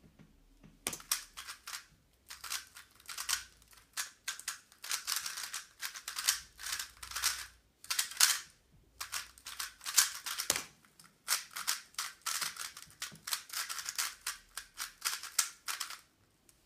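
3x3 speedcube being turned fast by hand: rapid plastic clicking and clacking of the layers in bursts with short pauses. The turning stops suddenly shortly before the end.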